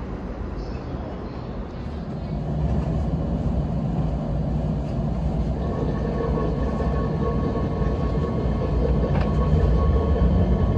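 Electric train pulling out and accelerating, heard from inside a car. The low running rumble grows louder from about two seconds in, and a steady multi-tone motor whine comes in about halfway.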